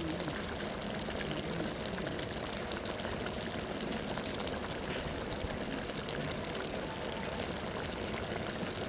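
Chicken curry simmering steadily in a pot.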